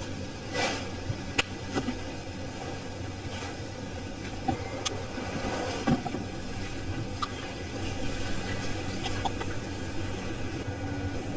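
Steady background noise with a low hum, broken every second or two by light clicks and knocks of plastic juice cups and lids being handled.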